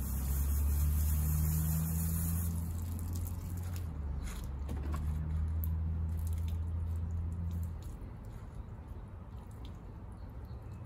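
Water dripping with small wet squishing sounds during a car hand wash, under a loud low hum that dips about four seconds in and stops about eight seconds in. A high hiss cuts off about two and a half seconds in.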